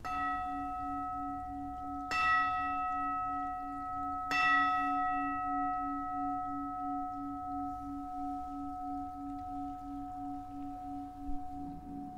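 A bell struck three times about two seconds apart, each strike ringing on and fading slowly with a wavering low hum: the bell rung at the elevation of the host during the consecration.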